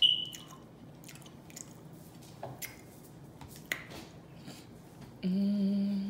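A fork clinks once on a plate with a short ring, then come faint wet mouth clicks of chewing and lip smacking. Near the end there is a closed-mouth hummed "mmm" of enjoyment, held about a second at a steady pitch.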